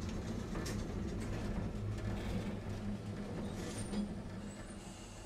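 Tosaden streetcar running, heard from inside the car: a steady low hum of motor and wheels on rail, with a few sharp clicks. The sound grows gradually quieter near the end.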